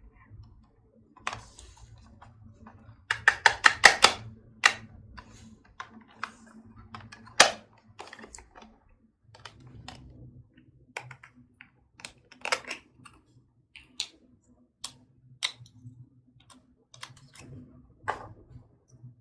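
Slime being pressed and worked by hand, giving sharp sticky pops and clicks, with a quick run of them about three seconds in and single pops after that.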